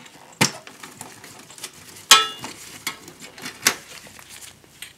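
Plastic clicks and light knocks of SATA cable connectors being unplugged from a Dell OptiPlex 7010 motherboard and the cables handled, with three sharper clicks spread over a few seconds and faint ticks between them.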